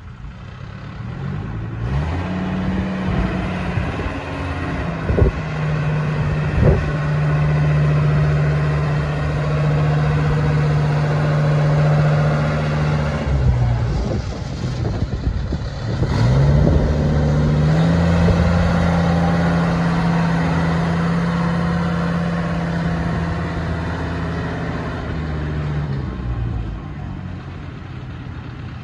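An engine running, rising in pitch a couple of seconds in and holding steady, dropping back briefly about halfway through before rising again, and winding down near the end. Two short knocks come a few seconds in.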